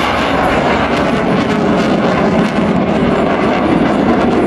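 Military jets' engines making a steady, loud rumbling roar as the aircraft fly overhead.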